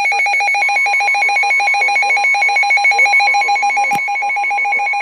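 Weather radio alert alarm, a Midland WR-400 chime, sounding for a severe thunderstorm warning as rapid, loud, high-pitched beeping. A steady tone, the broadcast's warning alarm tone, joins about half a second in, and there is a sharp click near the end.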